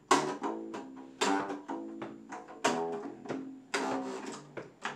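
Plucked string instrument, guitar-like, playing a quick run of single notes at about three a second, each with a sharp attack that rings briefly.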